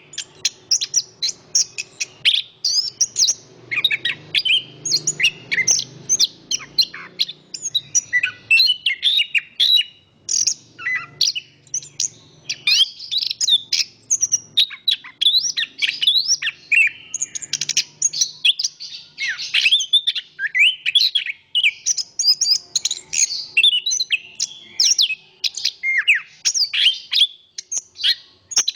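Chestnut-capped thrush singing a long, continuous song of rapid, varied high chirps and sweeping whistled notes, almost without pause.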